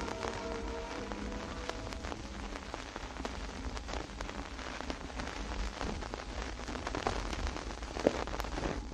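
Vinyl record surface noise: crackle and scattered pops, with a low steady rumble, as the record keeps turning after the song's last notes die away about a second in.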